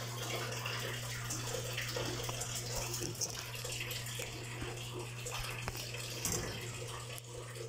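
Steady running water with a constant low hum from aquarium filters running in the reptile room's tanks. A couple of faint clicks sound in the middle.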